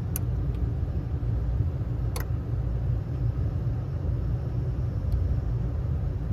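Lennox HVAC unit running with a steady low rumble, powered back up on its new transformer, with a few brief sharp clicks near the start, about two seconds in and near the end.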